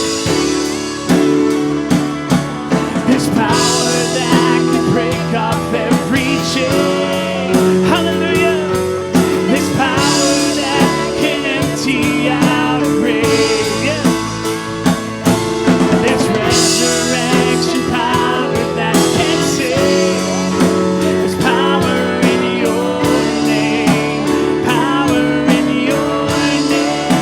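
A worship band playing a song with guitar and drum kit, with voices singing over it.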